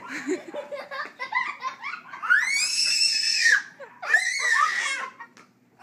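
A young child laughing, then letting out two long, high-pitched squeals, each rising and then falling, about two seconds in and again about four seconds in.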